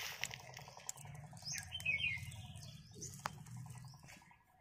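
Small birds chirping in short repeated phrases, loudest about halfway through, over a low background rumble. A couple of sharp clicks come near the start and about three seconds in.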